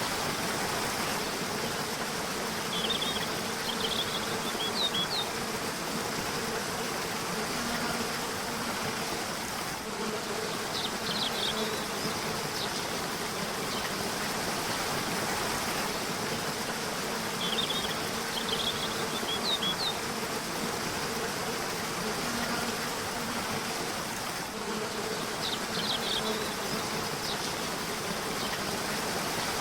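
Steady rush of flowing river water with a faint low buzzing hum. A bird gives short chirping phrases four times, about every seven or eight seconds.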